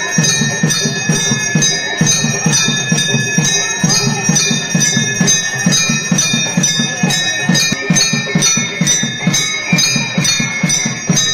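Temple bells ringing in a steady fast rhythm, about three strokes a second, with sustained metallic ringing and a low beat under each stroke, as during a puja.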